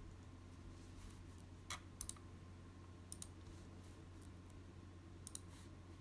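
Several faint clicks of a computer mouse, some in quick pairs, over a low steady hum.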